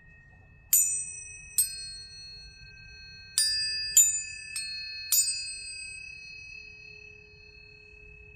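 Planetary tuning forks struck six times in quick succession, each strike a sharp metallic ping that rings on as a long, steady high tone. The tones overlap at several pitches and slowly fade, with a lower steady hum coming in near the end.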